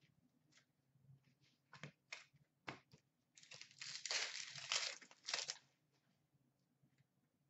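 A 2017-18 Upper Deck hockey card pack's foil wrapper being torn open and crinkled: a few short crackles, then a dense rush of crinkling from about three and a half seconds in that stops suddenly about two seconds later.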